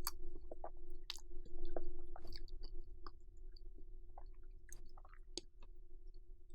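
Close-up chewing of cheesy macaroni: scattered wet mouth clicks and smacks, over a faint steady hum.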